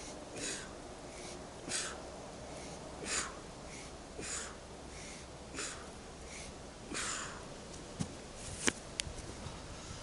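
A man breathing hard through push-ups, one forceful exhale every second or so, six in all. A few sharp clicks follow near the end as he finishes the set and gets up.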